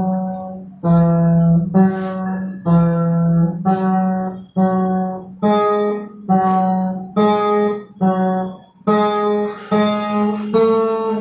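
Acoustic guitar strummed in single chord strokes, about one a second, each left to ring and fade, coming quicker near the end.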